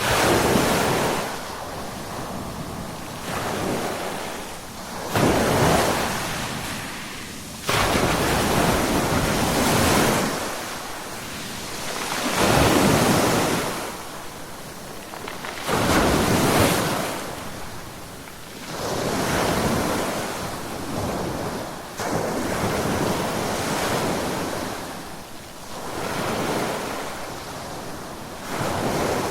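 Ocean waves breaking on a shore, a continuous rushing noise that swells and ebbs every few seconds as each wave crashes and washes back, some surges starting suddenly.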